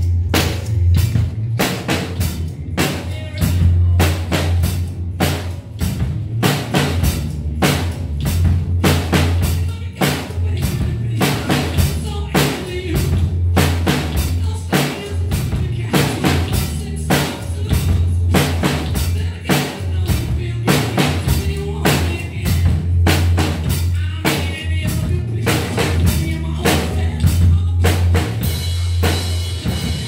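Acoustic drum kit played in a steady rock beat: bass drum, snare and cymbals struck in an even pulse, with the cymbals ringing more near the end.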